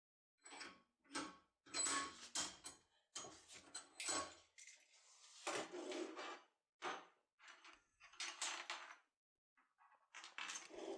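Safe lock and lockpick being handled: a run of faint, irregular metallic clicks, scrapes and rattles, several a second in places.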